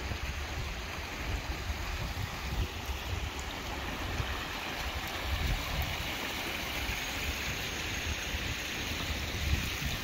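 Steady splashing and trickling of water from fountain jets and small stone cascades in an ornamental pool, over a low, uneven rumble.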